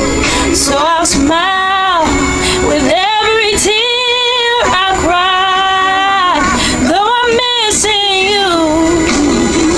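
A woman singing long, drawn-out notes with a slight waver in the pitch over backing music, with a few short breaths or breaks between the held notes.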